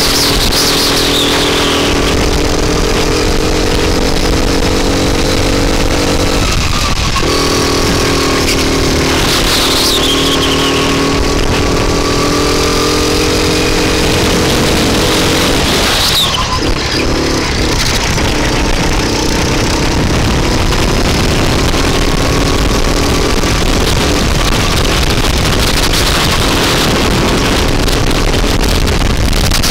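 A rental go-kart's engine running hard at racing speed, heard from on board. It eases off twice, about seven seconds in and again around sixteen seconds, then climbs back up as the kart accelerates out of the corners.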